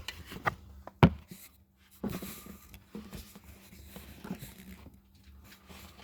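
A few sharp knocks and clicks, the loudest about a second in, with a stretch of rustling around two seconds in: small hard objects being handled and set down.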